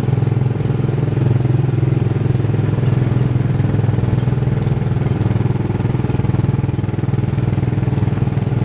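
Small gasoline engine of a Tomorrowland Indy Speedway ride car running at an even speed, heard close up from the driver's seat.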